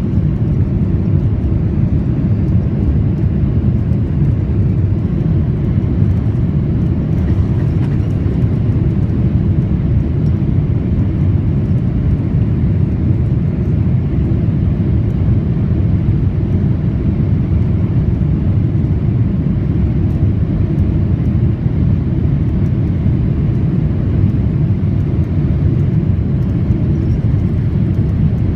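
Steady cabin noise inside a Boeing 787 airliner in flight: a constant low roar of engines and airflow, with no distinct events.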